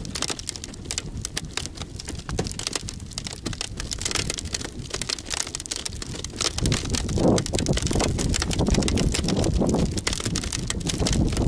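Lake ice crackling in dense, irregular clicks and ticks. Just past halfway, louder low gusts of wind on the microphone join in.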